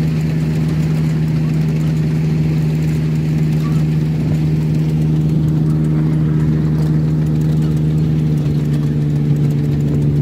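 Miniature railway locomotive's engine running steadily while hauling the train, a constant low hum with no change in pitch.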